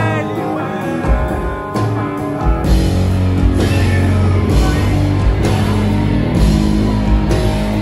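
Live indie rock band playing loud: electric guitar, bass guitar and drum kit. Held guitar notes ring at first, then the full band comes in heavier, with deep bass and steady drum hits, about two and a half seconds in.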